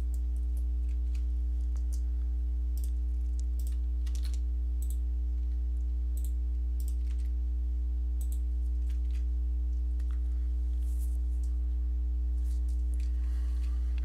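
Computer keyboard typing: keystrokes in short, irregular runs over a loud, steady low hum.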